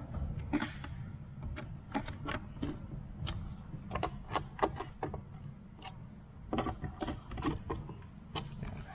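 Cam lock fittings in a flat-pack desk panel being turned tight with a small metal hex key: irregular sharp metal clicks and ticks, at times several a second, with short pauses as the key moves between fittings.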